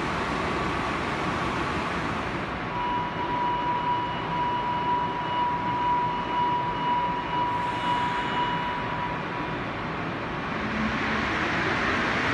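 Steady vehicle and traffic rumble. A single steady high tone holds for about seven seconds from a few seconds in.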